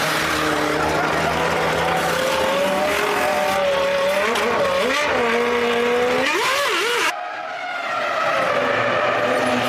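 2001 Formula One cars' 3.0-litre V10 engines running at high revs, the pitch sweeping up and down through gear changes and braking. The sound cuts off suddenly about seven seconds in, and another engine note builds.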